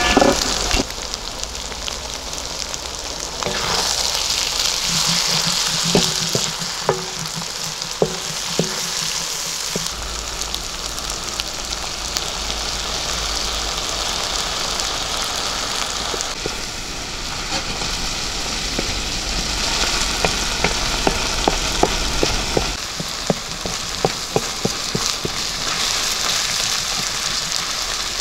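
Chicken, onions and chestnuts sizzling steadily as they fry in an iron pan over charcoal. Sharp pops and clicks come in stretches, twice.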